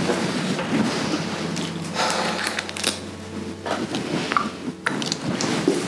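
Cloth rustling and handling noise close to a clip-on microphone: a towel patted over the face and a small bottle handled, in irregular short strokes.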